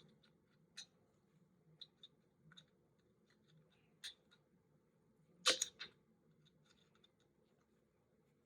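Scattered faint clicks and ticks of a small screwdriver and small plastic parts as a tiny screw is taken out of an HO-scale model locomotive's light fixture, with a louder cluster of clicks about five and a half seconds in.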